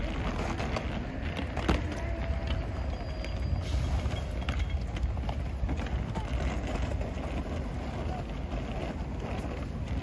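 Street ambience of steady traffic with a low rumble, mixed with indistinct voices, and one sharp click just under two seconds in.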